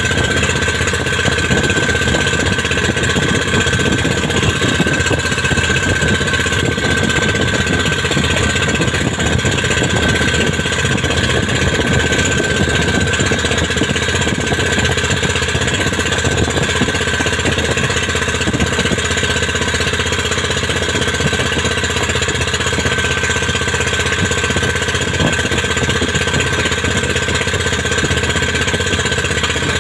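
Small engine of a motorized outrigger fishing boat running steadily close by, with a steady high whine above its chugging.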